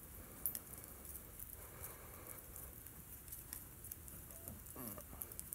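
Faint, scattered taps and soft scrapes of paint being mixed on a palette board.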